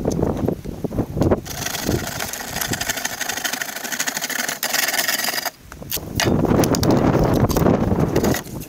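A metal mortar-spreading box scraping along the top of a concrete block wall as it lays a bed of mortar. About six seconds in, a louder, rushing noise follows as wet mortar is tipped from a bucket into the box.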